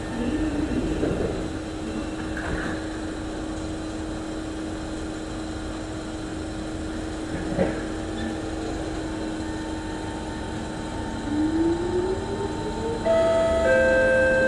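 Singapore MRT train carriage standing at a station with a steady hum, its doors shutting with a knock about halfway through. Near the end the traction motors start to whine, rising in pitch and getting louder as the train pulls away, with several steady tones joining in.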